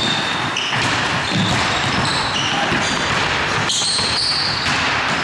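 Basketball game play on a gym court: the ball bouncing on the floor and sneakers squeaking in many short, high squeaks.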